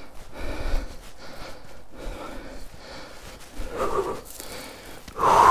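A man breathing hard and out of breath, with two louder, heavier exhales in the second half.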